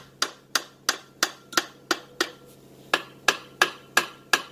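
Hammer striking the housing of a Mazda RX-8 13B rotary engine in a steady series of blows, about three a second, to knock the housing loose for disassembly.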